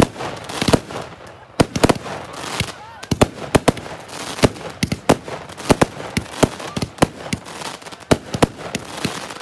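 Aerial fireworks going off: a rapid, irregular string of sharp bangs and crackles, several a second, as shells burst overhead.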